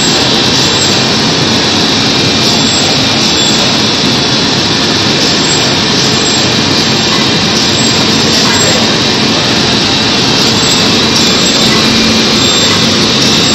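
Four-colour flexographic printing press running at speed, a loud, steady hiss-like machine noise with a low hum underneath as the printed web runs over its rollers.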